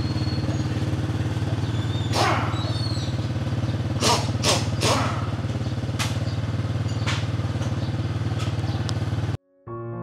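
New motorcycle engine idling steadily during its break-in run, with a few sharp clicks over it. Near the end the engine sound cuts off abruptly and piano music begins.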